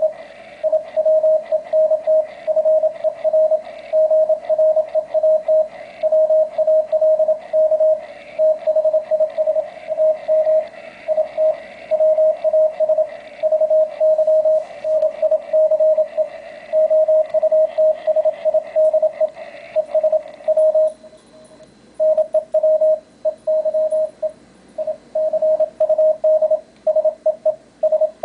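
A Morse code (CW) signal received on an Icom IC-703 ham transceiver and played through a loudspeaker: a single mid-pitched tone keyed on and off in quick dots and dashes over receiver hiss. About two-thirds of the way in, the higher hiss drops away while the keyed tone carries on.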